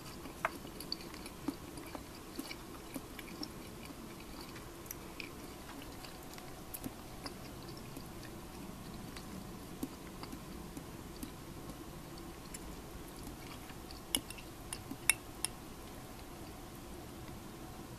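Sparse small clicks and taps at a dinner table over a steady low hum, with a cluster of sharper clicks about fourteen to fifteen seconds in as a drinking glass is handled.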